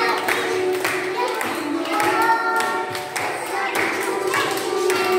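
Young children clapping their hands in time, about two claps a second, over a children's song with singing.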